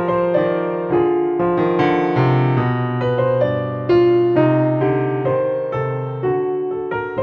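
Background piano music: a slow melody of struck notes that fade, over low held notes.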